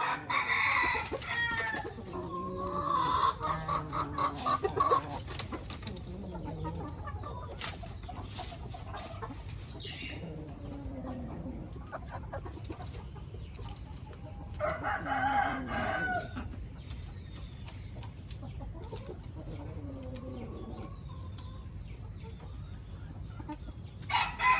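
Chickens clucking and roosters crowing. A crow comes right at the start, a rapid run of clucks follows a couple of seconds in, and further loud calls come about halfway through and at the very end, over a steady low hum.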